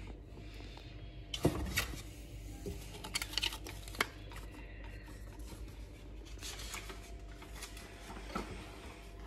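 Handling noise while unpacking a stainless steel pressure cooker: paper rustling from the manual and leaflets, and scattered light knocks and clicks of the steel lid and pot, loudest about a second and a half in and again around three to four seconds in.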